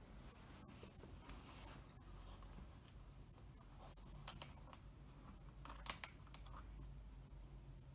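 Metal leg iron cuff being handled and fastened around a leather boot's ankle: faint metallic clicks, with two sharper ones about four and six seconds in.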